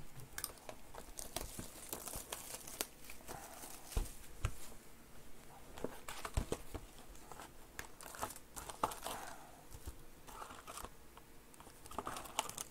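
Foil-wrapped Donruss Optic trading-card packs crinkling and cardboard tearing as a box of packs is opened by hand, with many small clicks and taps throughout.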